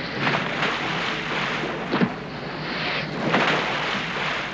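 Open-sea wash: waves splashing and wind on the microphone, with a few louder splashing surges.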